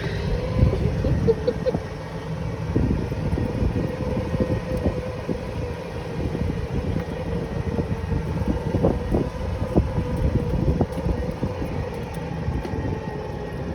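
A vehicle moving, heard from on board: a steady low running rumble with a faint steady whine, wind on the microphone and scattered small knocks and rattles.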